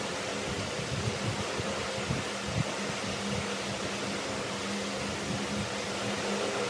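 An electric fan running steadily: an even rushing noise with a low steady hum underneath.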